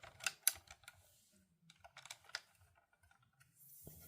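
Faint, scattered clicks and taps from a 1/18 diecast model car being handled and turned over in the hands, a handful in the first second and a few more about two seconds in.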